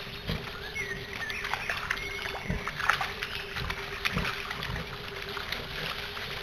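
Wild boar piglets wading and rooting in a shallow muddy puddle: irregular sloshing steps, splashes and soft knocks in the water.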